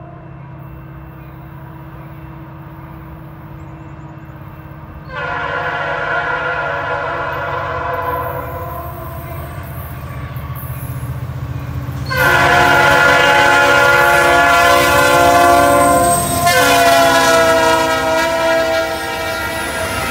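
Freight train's diesel locomotive horn blowing for a road crossing: a chord heard fainter at first, then long loud blasts about five seconds in, again about twelve seconds in, and a third just after. Under it, the low steady rumble of the locomotives as the train comes close and passes.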